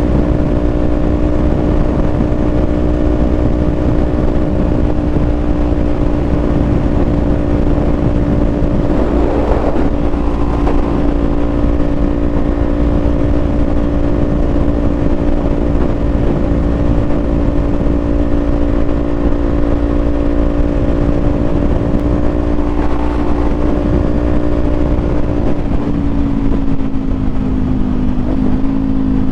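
Kawasaki Z400 motorcycle engine running at a steady cruise under heavy wind rush; the engine note drops a little near the end.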